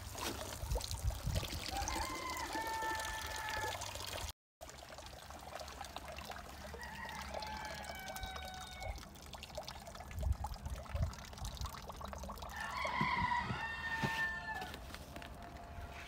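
Water dripping and trickling back into the pond from handfuls of wet azolla lifted out of it. A rooster crows three times in the background.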